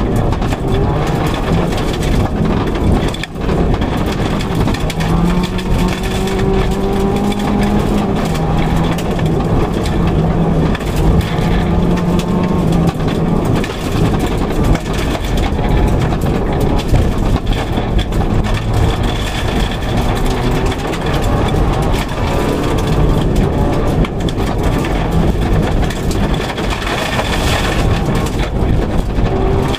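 2004 Subaru Impreza WRX STI rally car at speed on gravel, heard from inside the cabin: its turbocharged flat-four engine rises and falls in pitch as the driver works the throttle and gears, over a steady rumble of gravel and road noise through the body.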